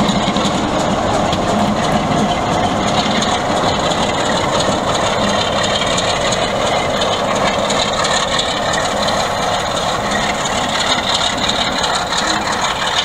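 Class 46 'Peak' diesel locomotive D182's Sulzer twelve-cylinder engine running as the locomotive rolls close past and draws away: a steady, heavy engine drone that eases off slightly near the end.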